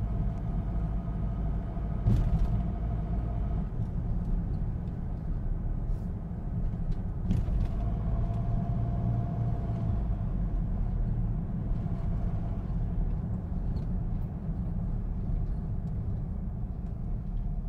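Steady low rumble of a car driving along a street, heard from inside the car: engine and tyre noise, with a faint hum that comes and goes and a couple of light knocks.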